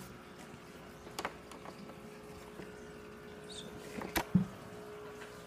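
A few light knocks and a heavier thud about four seconds in as a robot vacuum cleaner is handled, over a faint steady hum.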